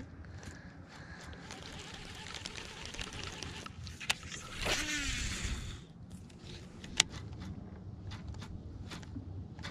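Baitcasting reel casting a soft-plastic fluke: a sharp click about four seconds in, then the spool whirring for about a second, falling in pitch as it slows, and another click a couple of seconds later as the reel is re-engaged for the retrieve. Faint reel cranking over a low rumble.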